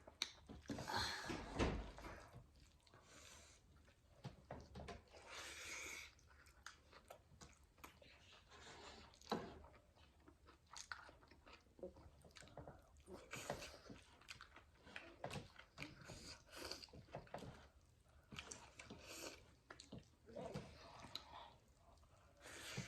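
People chewing and biting food close to the microphone, with soft crunching and scattered small clicks, at a low level.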